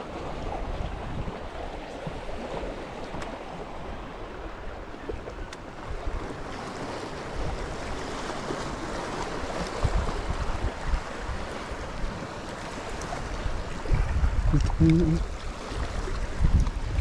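Sea washing and lapping against shoreline rocks, with wind buffeting the microphone in low gusts that are strongest near the end.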